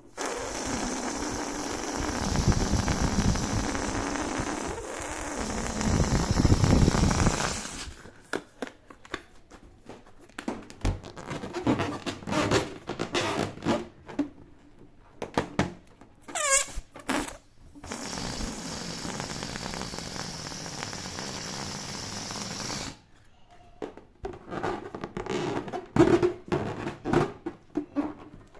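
Rubber balloons being handled and popped: stretches of steady rubbing hiss broken up by runs of sharp pops and squeaks, with a single squeal that glides up and down partway through and the loudest pop near the end.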